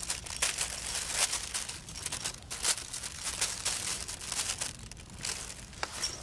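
Thin plastic carrier bag crinkling and rustling in quick, uneven spurts as a cat scrambles about inside it.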